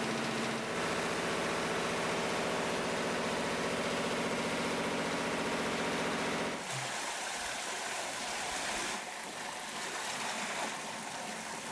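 A coffee pulping machine at a wet mill running with a steady mechanical drone. About two-thirds of the way in it cuts off abruptly, giving way to rushing water carrying coffee beans along a concrete washing channel.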